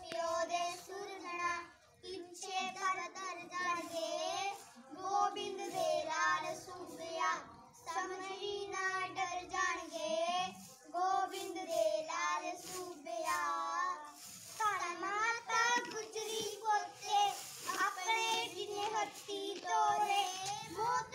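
Two boys singing a Sikh shabd (Gurbani hymn) together, unaccompanied, in a steady chanting melody.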